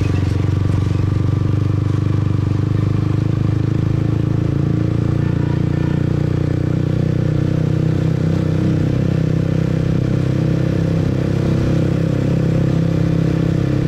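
Motorbike engine running steadily at an even cruising speed while being ridden, with road noise.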